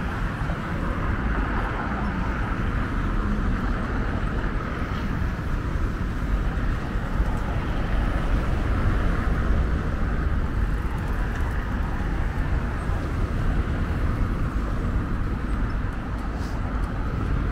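Steady outdoor ambience: a constant wash of road traffic noise, unbroken throughout.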